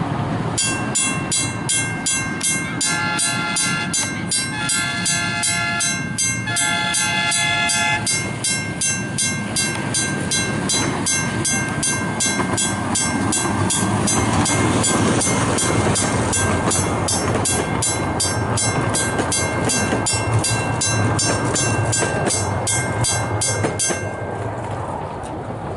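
Western Railroad Supply mechanical level-crossing bell ringing with rapid, even strokes, starting just under a second in and stopping near the end. A train horn sounds three times early on, and a low rumble from the train running past builds in the second half.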